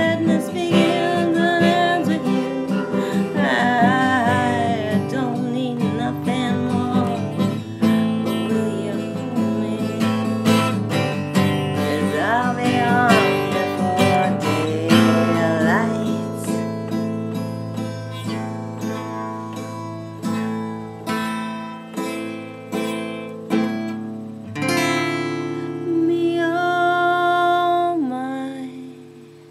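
A woman singing to her own strummed acoustic guitar. Her voice is strongest in the first half; after that the guitar carries on in slower strums about a second apart, and the sound fades away just before the end.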